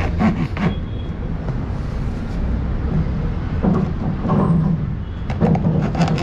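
Long knife sawing through the shoulder of a plastic jerrycan, rasping in uneven groups of strokes, over a steady low background rumble.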